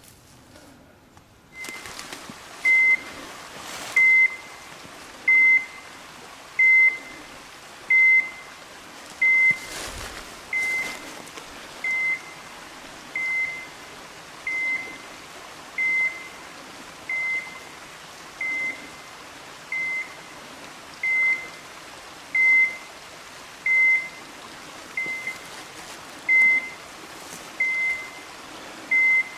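Hunting dog's beeper collar sounding a short, high beep about every second and a quarter, the steady rhythm of point mode that tells the hunter the dog has stopped on point.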